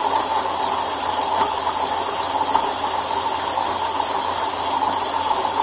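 Steady mechanical running noise of the machine keeping the spoked wheel spinning: an even, unbroken whir with hiss.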